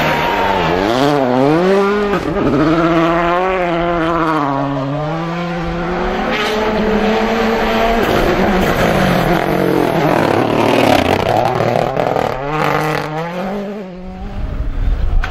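Two World Rally Cars, a Volkswagen Polo R WRC and then a Mini WRC, both with 1.6-litre turbocharged four-cylinder engines, driving hard past the spectators. The engine pitch rises and falls again and again as the drivers accelerate, lift and change gear.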